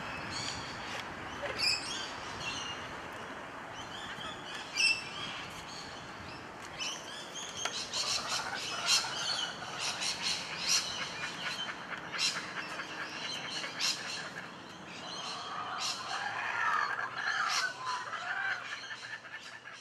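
Outdoor birdsong: several birds chirping and calling over a faint steady hiss, with a dense run of rapid chirps in the middle and some lower warbling calls near the end.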